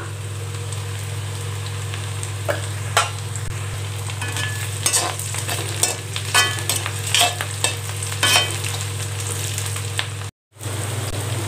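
Shallots and onion frying in sesame oil in a metal kadai, sizzling softly while being stirred. A slotted metal spatula scrapes and clicks against the pan at irregular moments over a steady low hum. The sound cuts out for a moment about ten seconds in.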